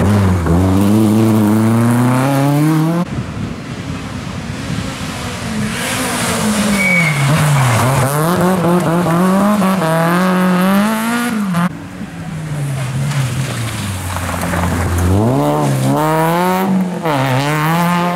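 Rally car engines revving hard through a corner, the pitch climbing and dropping again and again with lifts and gear changes. Three cars in turn, each cut off sharply, about 3 s and 12 s in.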